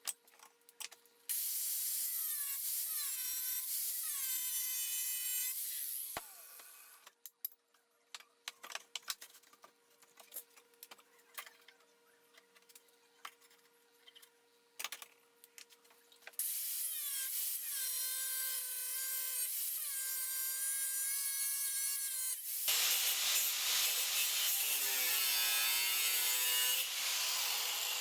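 A power tool cutting steel angle iron in two long cuts, the first lasting about five seconds and the second from about the middle to the end, with scattered clanks and clicks of handling between them.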